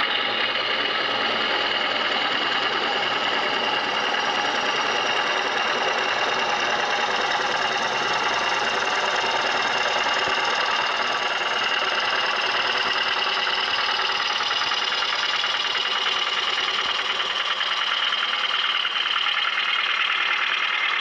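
A bowl gouge with a U-shaped flute making a push cut, bevel rubbing, on wood spinning on a Oneway 2436 lathe. The cutting noise is steady and even, with a faint high tone running through it.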